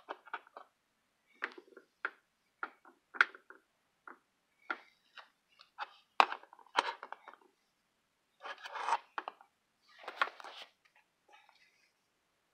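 Handling noise from a plastic battery adapter and its parts: a string of irregular short clicks and knocks, the sharpest about six seconds in, with two brief rustling or scraping stretches near the end.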